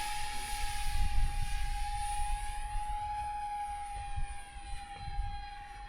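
Electric ducted fans of a small RC jet (three 40 mm EDFs) whining in flight: a steady high tone over rushing air, growing fainter as the plane flies away.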